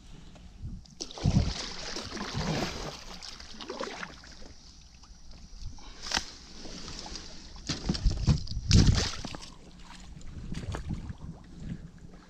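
Water splashing and sloshing around a kayak, with a few low thumps on the hull, the loudest about a second in and twice around eight to nine seconds in.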